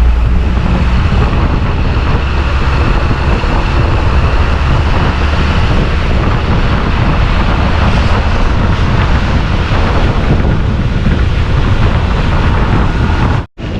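Steady, loud rumble and rushing noise of a moving vehicle, with wind buffeting the microphone. It cuts out abruptly for a moment near the end.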